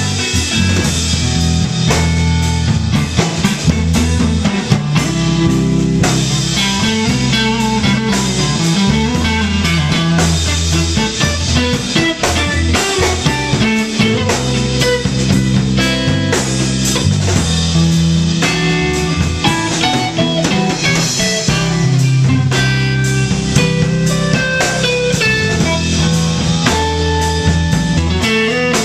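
Live instrumental band of electric guitar, electric bass and drum kit playing together, the guitar playing note lines over a steady bass line and drum beat.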